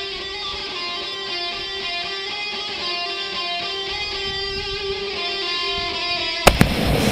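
Background guitar music with strumming. About six and a half seconds in, a sudden loud bang cuts in, the loudest sound here.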